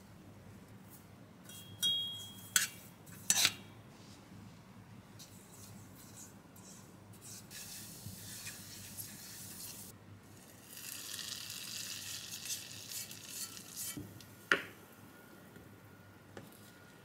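Oil with chili flakes and dried mint sizzling in a small stainless-steel saucepan as it comes to the boil for a seasoning oil, stirred with a silicone spatula. The sizzle starts about halfway in and is strongest near the end. Earlier there is a short beep and two sharp clicks, and a single sharp knock comes shortly before the end.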